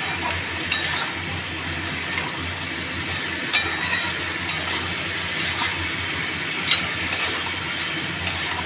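Metal spoon stirring chicken and vegetables in a metal pan, with a few sharp clinks of the spoon against the pan over a steady frying sizzle.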